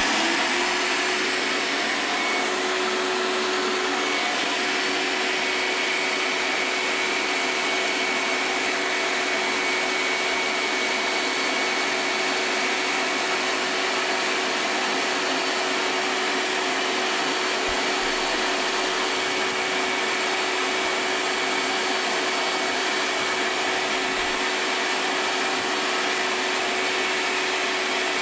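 A 6-horsepower, 16-gallon shop-vac switches on at the very start, then runs steadily with a low hum and a high whistle over the rush of air. Through its 2.5-inch hose it is drawing up fine sawdust.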